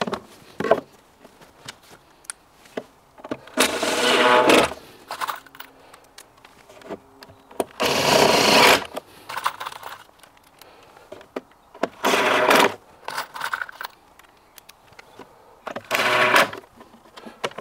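Cordless drill-driver running in four short bursts, about one every four seconds, driving screws into a wooden cabinet panel to fix a door retainer, with small clicks and knocks between the bursts.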